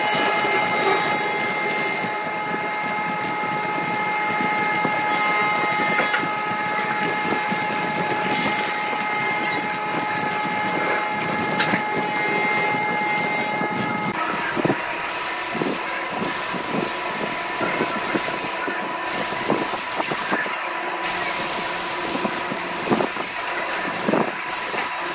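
Wood lathe running with a steady whine while a flat scraper held on the tool rest scrapes the spinning wooden vase with a steady hiss. About halfway through, the sound changes to sandpaper pressed by hand against the spinning wood, with a rough rubbing and small irregular scratches.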